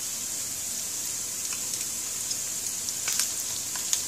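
SPAM slices and shallots sizzling steadily in hot oil in a frying pan, with a few faint crackles in the second half.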